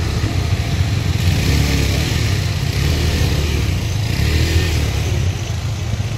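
Several motorcycle engines running close by, with a few short revs rising and falling over the steady low engine sound.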